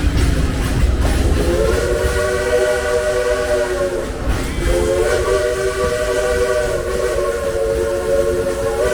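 Frisco Silver Dollar Line steam locomotive's whistle blowing a chord of several notes in two blasts, one of about two and a half seconds and then, after a short break, a longer one that is still sounding at the end. A low rumble of the moving train runs underneath.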